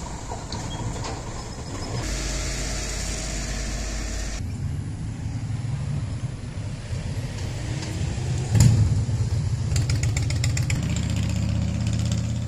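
Outdoor street sound with a motor vehicle engine running, the background changing abruptly a couple of times. A single sharp click comes about two-thirds of the way in, with a few lighter clicks soon after.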